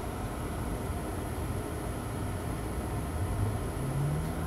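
Steady low hum and hiss of workbench equipment running, with a faint constant high whine. A short low hum swells briefly near the end.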